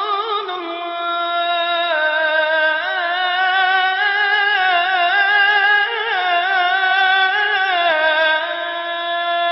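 Background vocal music: a single voice sings long, held notes with wavering ornaments, stepping to a new pitch a couple of times, with no percussion.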